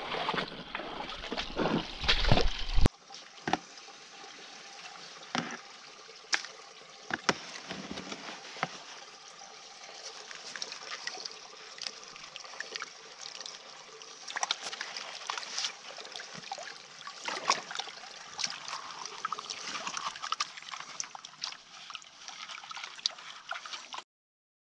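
Water sloshing and trickling in a gold pan as gravel concentrate is washed down, with scattered sharp clicks.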